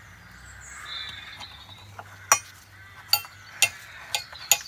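Sharp metallic clinks of metal on metal, irregular, about two a second from roughly two seconds in, as a loosened bolt is worked free from a cast iron bench leg.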